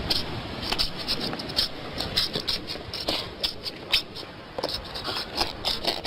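A wombat making raspy, scratchy noises, a rapid irregular run of short clicks and rasps.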